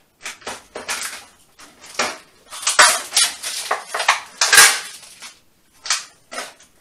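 Metal utensil clattering and scraping in a frying pan of chicken pieces: a run of irregular knocks and short scrapes, loudest from about halfway through to nearly the end.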